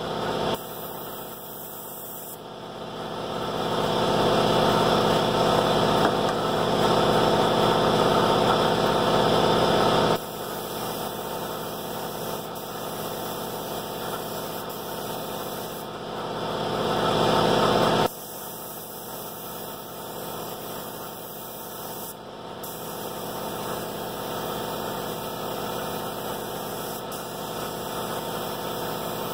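Compressed-air paint spray gun hissing in two passes: a long one of several seconds starting a couple of seconds in, and a shorter one a little past halfway, each cutting off abruptly as the trigger is released. Under it is a steady mechanical hum from the air compressor feeding the gun.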